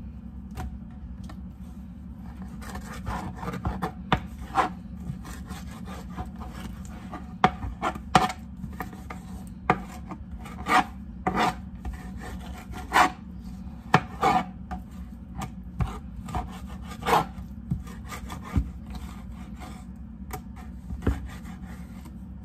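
Kitchen knife cutting soft roasted poblano chiles into strips on a plastic cutting board: a run of irregular knife strokes and taps on the board, mixed with scraping rubs of the blade.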